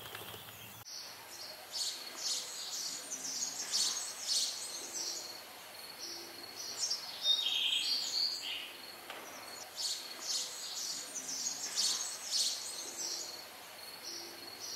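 Songbirds singing: a busy run of high, quick chirps and trills that comes in about a second in and carries on.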